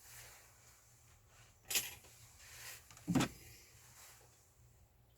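Handling noises on a work surface: a sharp click about a second and a half in, then a duller knock about three seconds in, with faint rustling between.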